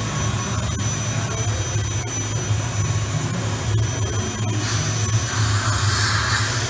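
OKK VM-5 II CNC vertical machining center running under power with a steady low hum and a faint high whine. About four and a half seconds in, a rushing hiss starts and lasts about two seconds.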